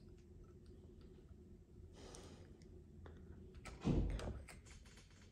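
Faint clicking and rubbing of small plastic brick pieces as a minifigure is worked into a toy plane's cockpit, with a soft exhale about two seconds in and a louder dull thump about four seconds in.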